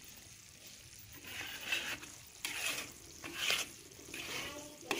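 Stirring strokes scraping a metal wok of thick, bubbling sugar syrup cooked down for gulali candy, with a faint sizzle. The strokes begin about a second in and come roughly once a second.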